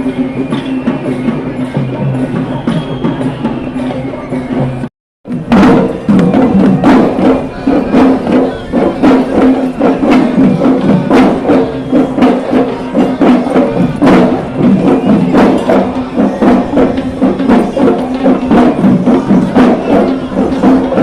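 Sri Lankan perahera procession music: traditional drums beaten in a fast, dense rhythm. A steady held tone runs over the drumming at first. The sound drops out briefly about five seconds in, and the drumming comes back louder.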